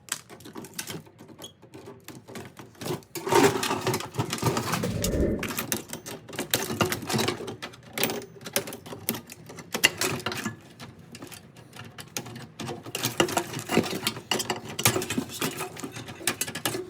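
Dense, irregular metallic clicking and clattering of hand tools on the sheet-metal chassis and parts of an old microwave being taken apart. It is louder a few seconds in and again near the end.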